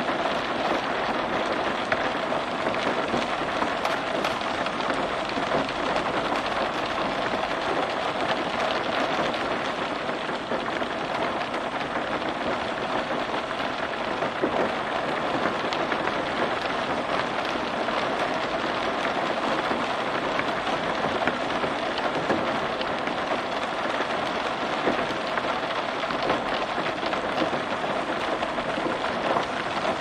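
Rain falling on a car roof: a steady, dense patter of countless small drop impacts.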